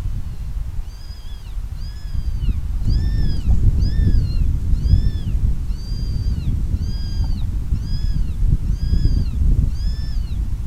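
Predator call sounding a distress cry to lure coyotes: a steady string of identical high, meow-like squeals, each rising then falling, about one and a half a second. Low wind rumble on the microphone.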